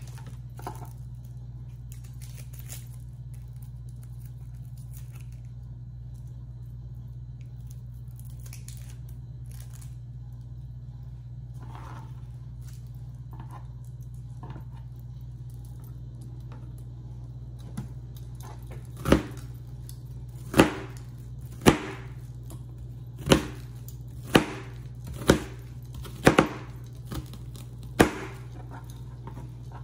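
Faint rustling as a yellow onion is peeled by hand, then a chef's knife cutting the onion on a plastic cutting board: about eight sharp knocks, roughly one a second, starting about two-thirds of the way in. A steady low hum runs underneath.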